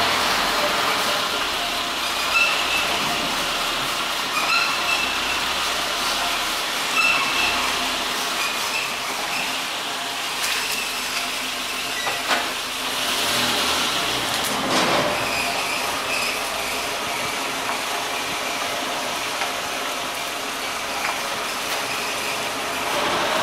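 Renault Logan creaking and squeaking over and over like an unoiled cart, short high squeaks over the steady noise of the moving car.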